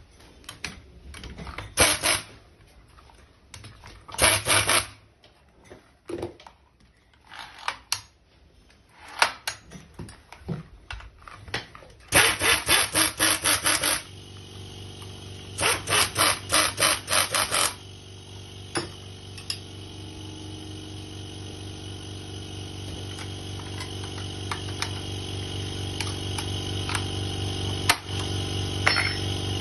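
Pneumatic impact driver fastening screws through steel seat slider rails into a swivel plate: two runs of rapid hammering, each about two seconds long, about halfway through, preceded by scattered clinks and knocks of metal parts being handled. After them a steady low machine hum comes in and grows louder.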